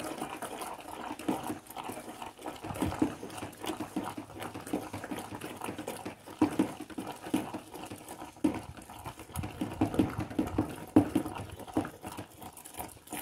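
Thick homemade liquid soap being stirred by hand with a long plastic paddle in a plastic tub: irregular wet sloshing and squelching strokes as water is mixed in.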